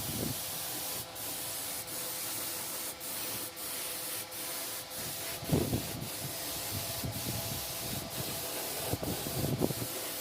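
Sanding: a steady abrasive hiss, broken by short pauses every half second to a second, with a few dull knocks, the loudest about halfway through and a cluster near the end.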